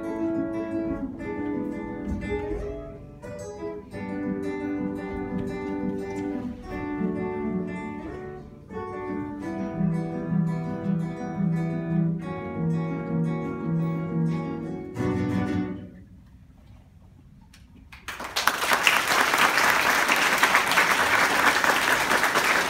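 A trio of classical guitars playing a melodic piece together, which closes on a final chord about fifteen seconds in. After a pause of about two seconds, an audience applauds.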